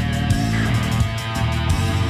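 Background guitar rock music with a steady drum beat.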